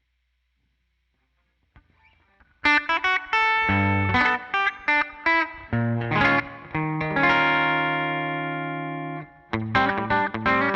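Electric guitar with Zexcoil Legacy Signature P90-size pickups, played through a Line 6 Helix Twin Reverb amp model with the guitar's controls full up. Playing starts about two and a half seconds in with picked notes and chords, a chord rings and slowly fades for about two seconds, then steady rhythmic picking comes in near the end.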